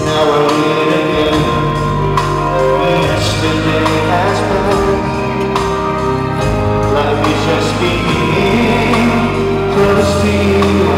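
Live pop ballad: a man singing into a handheld microphone over accompanying music, played loud through the venue's sound system.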